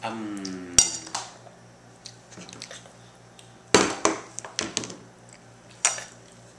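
A short burp that falls in pitch, followed at once by a sharp click. A few seconds later come two louder sharp knocks or clatters, a couple of seconds apart.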